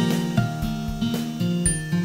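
Instrumental background music: pitched notes changing over a steady beat.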